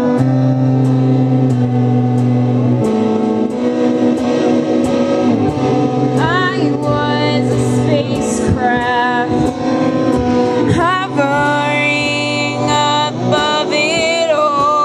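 Live band music: electric guitar and keyboard over sustained low notes, with a light ticking beat about twice a second. Female singing comes in about six seconds in.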